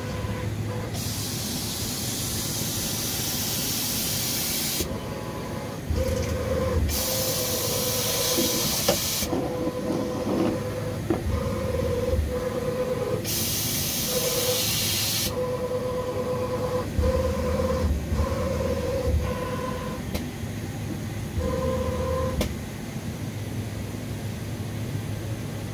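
The imes-icore CORiTEC 350i PRO 5-axis dental CNC mill is running, its motors whining in short stop-start runs as it moves. Three hissing blasts of air, each lasting two to four seconds, come about a second, seven seconds and thirteen seconds in.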